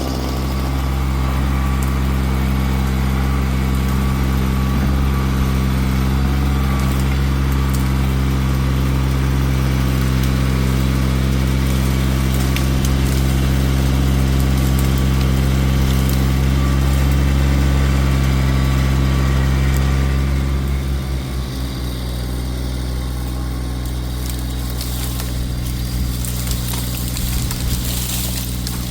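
An engine running steadily at a constant speed, dropping slightly in level about 21 seconds in.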